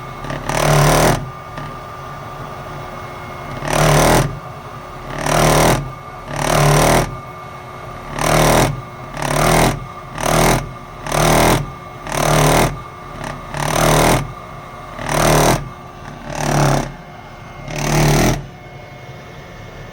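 Weil-McLain boiler making a repeated vibrating noise: loud rattling pulses about half a second long, coming roughly once every second or so over a steady hum, with a short break a couple of seconds in.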